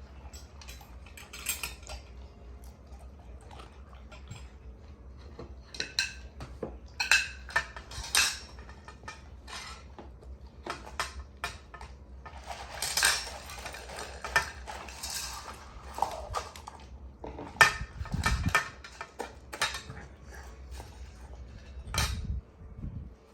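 A chocolate Labrador retriever eating from a dish: irregular clinks and clatters as the dish is knocked about, with a noisy stretch lasting a few seconds about halfway through and a couple of dull thumps near the end.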